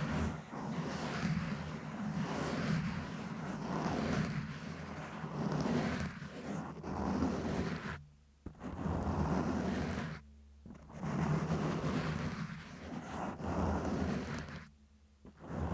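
Close-up scratching on a microphone: a continuous rough rubbing with a heavy low rumble, stopping briefly three times in the second half.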